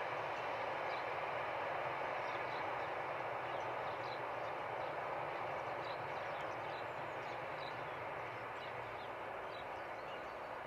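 Electric-hauled freight train of flat wagons loaded with steel coils rolling past, a steady rumble of wheels on rail that slowly fades as the last wagons pull away.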